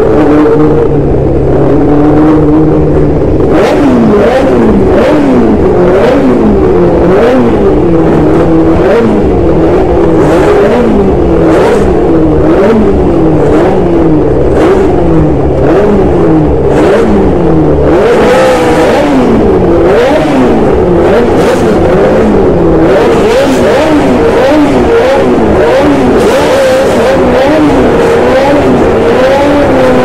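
1974 Hesketh 308's Cosworth DFV V8 engine heard onboard at racing speed, its pitch climbing as it revs and dropping sharply at each gear change, over and over as the car accelerates and brakes. It runs at a steadier pitch for the first few seconds before the rapid rev-and-shift cycles start.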